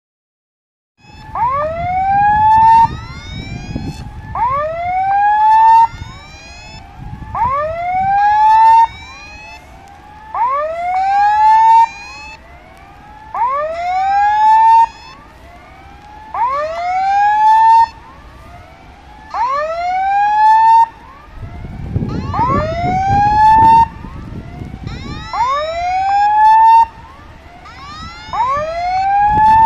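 Level crossing warning alarm sounding: an electronic tone that rises in pitch over about a second and a half and cuts off, repeating every three seconds, with a low rumbling noise underneath.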